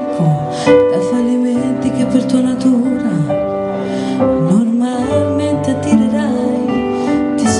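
A woman singing a slow song into a microphone over instrumental accompaniment, her voice gliding between long held notes.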